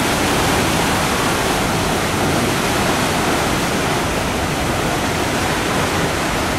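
Steady rush of water churned by the paddle wheels of the 1909 steamer Stadt Zürich, foaming against the landing pier as the wheels turn.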